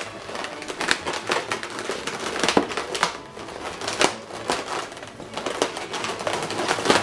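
Inflated latex twisting balloons rubbing against each other as they are handled and wrapped round, giving an irregular run of squeaky crackles and rubs.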